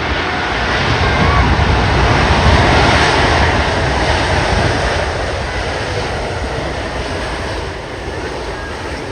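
Jet engines of a Boeing 747 freighter roaring as the aircraft passes, swelling to a peak about two to three seconds in and then slowly fading.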